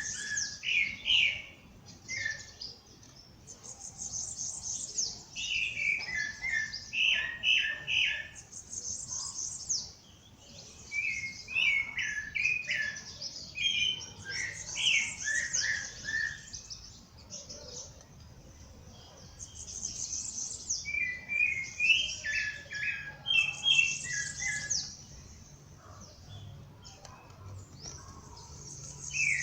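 Songbirds singing at dawn: song phrases repeat every few seconds, each a high, fast trill together with a run of lower, sharper notes, with brief quieter pauses between phrases.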